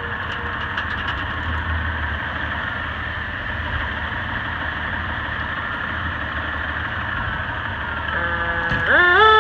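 A fire engine's diesel engine runs steadily as the truck pulls slowly out of the station. Near the end its siren comes on and begins to rise in pitch.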